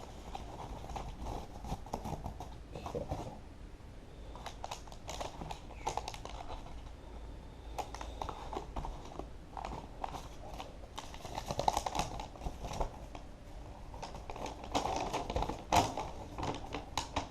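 Paper and packaging handled by hand: irregular rustling, crinkling and light tapping and clicking. It comes in bursts, loudest a little past the middle and again near the end.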